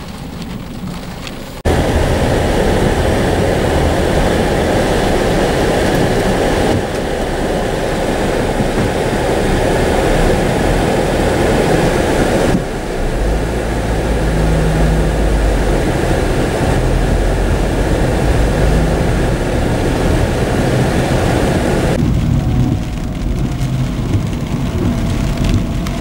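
Heavy rain drumming on a car's roof and windshield, heard from inside the moving car, with a low road and engine rumble beneath. The rain noise comes in suddenly about two seconds in, the rumble grows deeper through the middle, and the sound drops back for the last few seconds.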